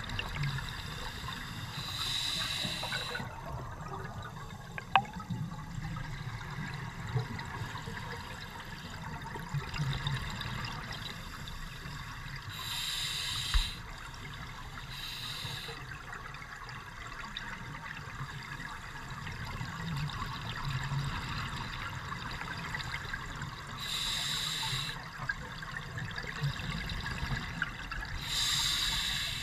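Scuba diver breathing on open-circuit regulators underwater: short hissing rushes of inhaled air come several seconds apart, and the bubbles of the exhalations rumble in between.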